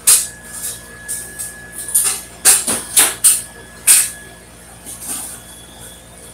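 MIG welder laying quick tack welds: a series of short crackling arc bursts, each a fraction of a second, several in quick succession in the middle.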